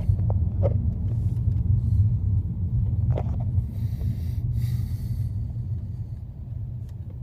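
Low rumble of a car driving, heard from inside the cabin, slowly fading toward the end.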